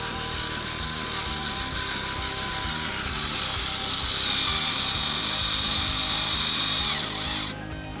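The electric drive motor of a DIY remote-control model tractor whines as it strains to haul a trolley fully loaded with soil, over background music. The whine grows louder about three seconds in and cuts off shortly before the end.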